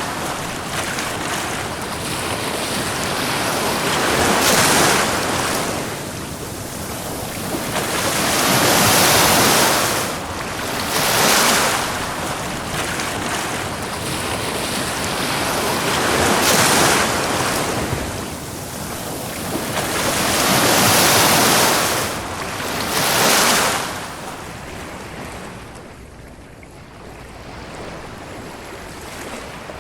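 Ocean waves breaking and washing up a beach, a surge of surf every few seconds, about six in all, then quieter near the end.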